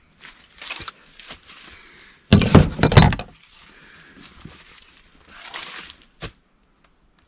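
A run of loud knocks and clatter about two seconds in, lasting about a second, between softer rustling and handling noises, with one more sharp knock near the end.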